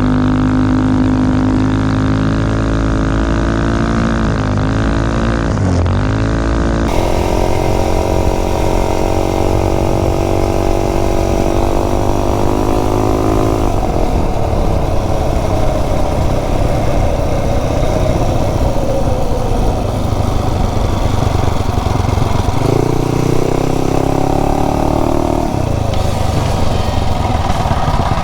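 Tillotson 263cc single-cylinder four-stroke minibike engine running under load while ridden, its engine speed rising and falling.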